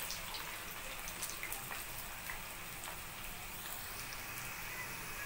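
Cornstarch-dusted potato fries deep-frying in hot oil in a pan on their first, par-cooking fry: a steady sizzle with scattered small pops and crackles.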